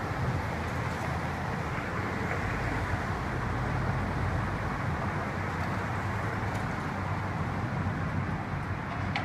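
Steady, even rumble of downtown city traffic noise.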